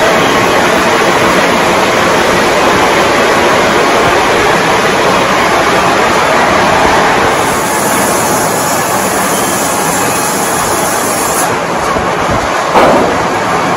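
Antique sawmill machinery running with a loud, steady mechanical noise, and a single sharp knock near the end.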